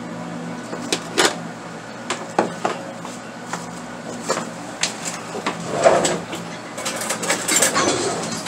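Kitchen handling sounds as cabbage rolls are served from a foil pan: a metal serving spoon clicking and knocking against the pan and a bowl, several sharp taps in the first five seconds, then a longer stretch of rustling and clatter near the end.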